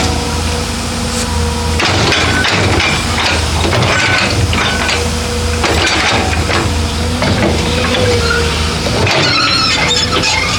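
Excavator at work: the diesel engine runs steadily under a wavering hydraulic whine, with irregular clanks and knocks throughout that are densest near the end.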